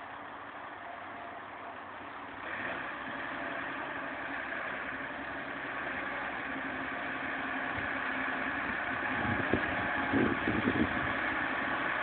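Ford 7840 tractor's six-cylinder diesel engine working under load while pulling a three-furrow plough, growing steadily louder as it approaches. A few low thumps come near the end.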